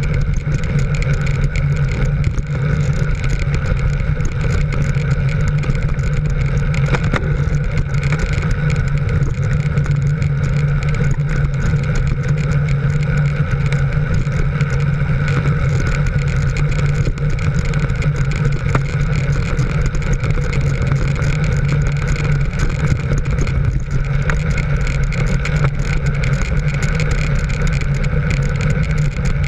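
Steady drone of a motor vehicle's engine at constant cruising speed, with road and wind noise, heard from on board the vehicle.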